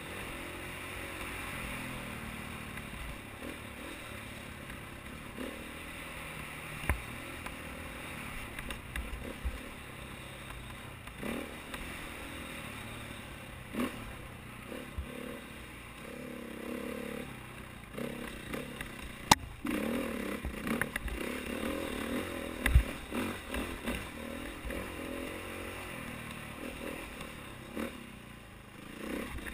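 KTM 450 XC-W single-cylinder four-stroke dirt bike engine running on and off the throttle, its pitch rising and falling as the rider works through the singletrack. Sharp knocks and clatter break in throughout.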